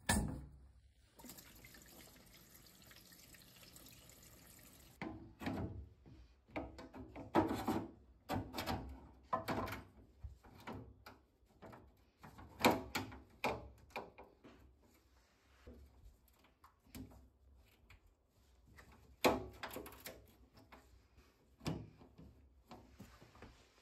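Gloved hands refitting parts inside a combi boiler: a faint steady hiss for the first few seconds, then irregular knocks, clicks and handling noises of parts and a screwdriver. Water sounds come from the wet, liquid-filled condensate trap as it is put back.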